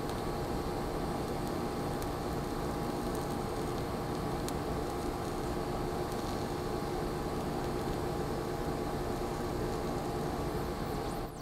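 TIG welding arc at about 165 amps on a steel plate, fed with 1/8-inch filler rod: a steady hiss with a faint hum under it. This is a fill pass building up a ground-out repair groove over undercut and slag inclusions.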